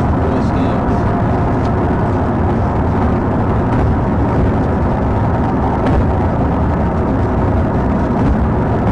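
Steady, loud road and wind noise of a police car driving at high speed during a pursuit, with a few faint clicks.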